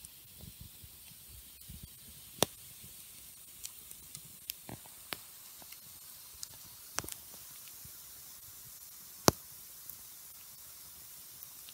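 Wood campfire burning: a steady hiss with a scattering of sharp crackling pops, the loudest about nine seconds in.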